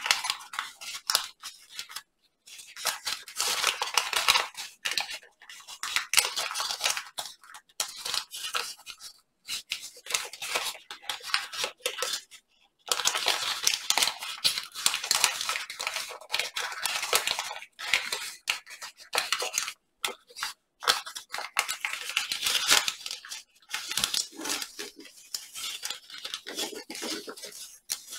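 Paper rustling and crinkling as hands fold, shape and crease a large sheet of origami paper. The sound comes in long stretches of crackling, with a few brief pauses.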